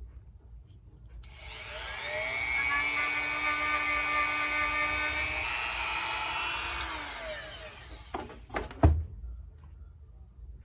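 Dremel rotary tool with a wire brush spinning up about a second in, running for several seconds as it scrubs the metal tube cutter clean, then winding down. A few knocks come near the end, the loudest a sharp single thump.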